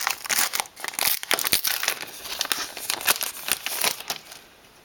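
Plastic trading-card pack wrapper being torn open and crinkled by hand, a rapid run of crackles that dies away about four seconds in.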